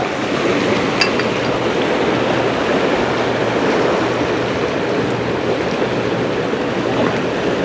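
Steady rush of turbulent water churning in the tailrace below a dam, with a brief click about a second in.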